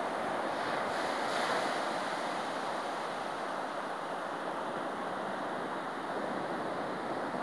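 Small ocean waves breaking and washing up over flat wet sand: a steady surf hiss that swells slightly about a second in.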